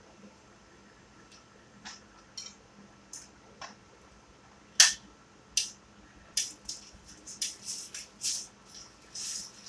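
Scattered clicks and knocks of kitchen handling as an electric sandwich maker's lid is lifted open, the sharpest click about five seconds in. Then comes a run of quick clatters and rustling as bread and food are handled on the counter.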